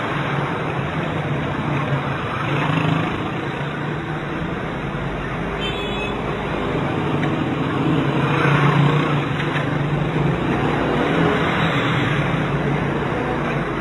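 Steady engine hum and road noise of a car driving along a street, heard from inside the car.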